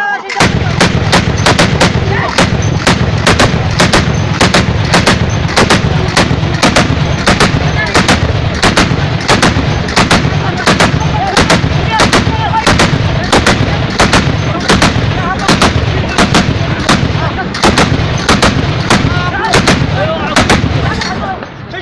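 Tripod-mounted, belt-fed heavy machine gun firing long, sustained automatic fire: sharp reports over a dense low din, stopping near the end.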